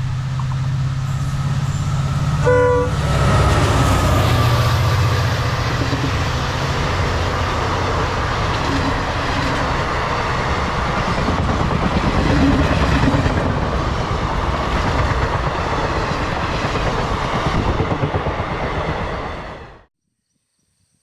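Express passenger train passing at speed behind a WDP-4D diesel locomotive: the locomotive's engine runs heavily, with a short horn blast about two and a half seconds in. The coaches' wheels then clatter steadily over the rail joints. The sound fades and cuts off just before the end.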